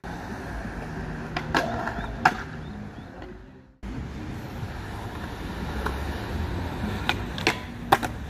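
Skateboard wheels rolling on concrete with a steady low rumble, and sharp clacks of the board hitting the ground, twice about two seconds in and three times near the end. The sound fades out and cuts back in just before four seconds in.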